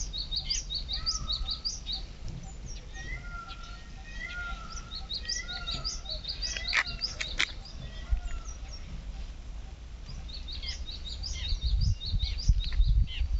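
Several birds calling in open country: rapid, high chirps throughout, with a run of short slurred whistled notes in the first half. A low rumble underneath grows stronger near the end.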